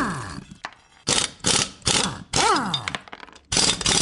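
Produced intro sound effect: bursts of sharp mechanical-sounding hits, about four to a group, with brief pauses between groups and a pitched tone that swoops up and then down in each group.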